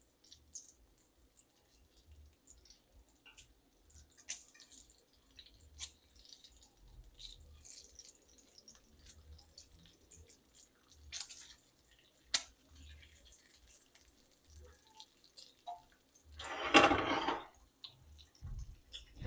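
Bacon frying in a pan on low heat, with scattered crackles and pops of spitting fat. Near the end comes a louder hiss about a second long.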